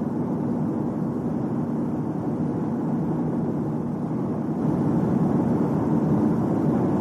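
Steady rumbling vehicle noise, getting louder about four and a half seconds in.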